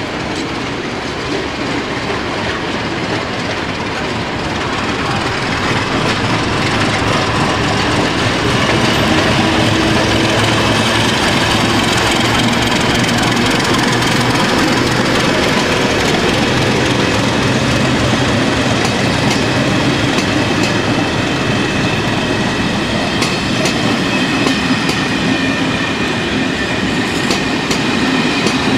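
ČD class 749 diesel locomotive running past with its passenger train, its engine drone growing louder as it approaches. The coaches follow, rolling by with clickety-clack over the rail joints and a high wheel squeal through the second half.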